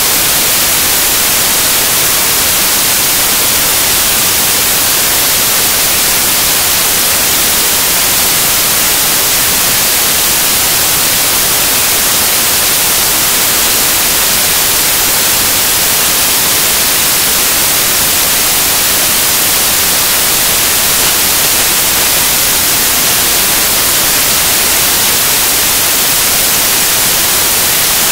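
Loud, steady static hiss like white noise, even and unbroken, brightest in the high end, with nothing else heard through it. It cuts in abruptly where the narration and music break off, a fault in the audio track.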